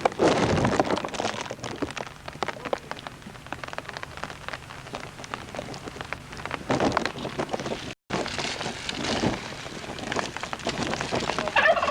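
Steady rain pattering, a dense hiss of small drop ticks with a few louder surges, cutting out for an instant about two thirds of the way through. Near the end a bird gives a short warbling call.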